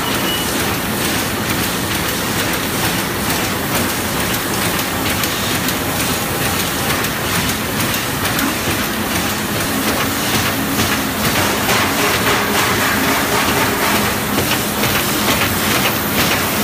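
New Star YFMA-1050G automatic film laminating machine running at full speed: a steady mechanical din with a fast, continuous clatter of clicks as the feeder and rollers carry printed sheets along the feed table.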